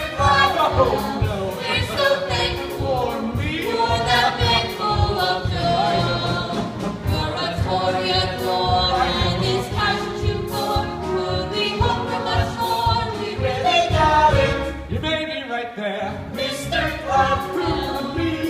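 A musical theatre ensemble singing a show tune in chorus over band accompaniment with a steady beat.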